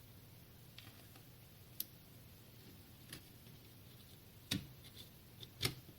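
Scattered light clicks and knocks over a faint steady low hum, the two loudest about four and a half and five and a half seconds in.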